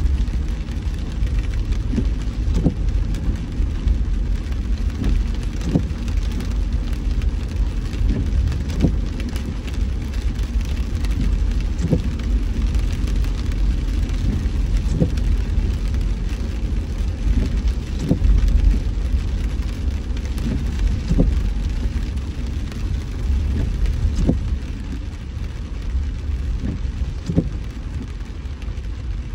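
Car driving in rain: steady low road rumble under a hiss of rain, with a short knock recurring every few seconds.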